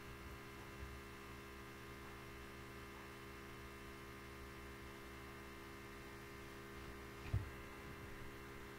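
Steady electrical mains hum with a buzz, the background of the recording. A single short low thump about seven seconds in.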